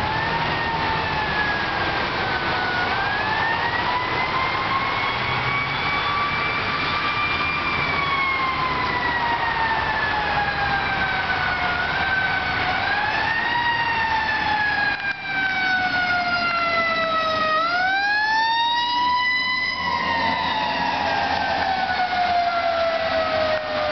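Fire engine's siren wailing while responding: the pitch rises, then falls slowly over several seconds, over and over, with a quicker, steeper rise a little after halfway.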